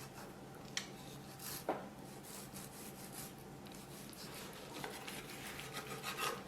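Knife slicing horizontally through a thick raw chicken breast on a cutting board: faint scraping and rubbing, with a couple of small knocks about one and two seconds in.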